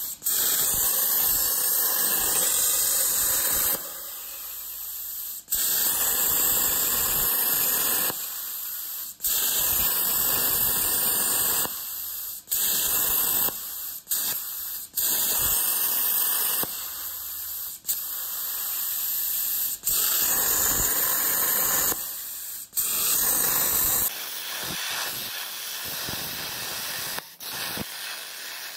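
Air plasma cutter torch cutting steel plate under CNC control: a loud, steady hiss of the arc that switches on and off sharply again and again, a few seconds at a time, as the relay starts and stops each cut. A quieter hiss carries on between the cuts and through the last few seconds.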